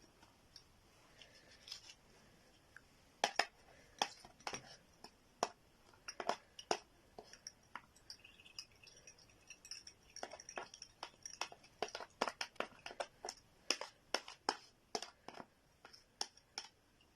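Irregular clicks, clinks and scrapes of kitchenware as grated onion pulp is pressed through a strainer into a glass. They are few at first and come thick and fast from about three seconds in.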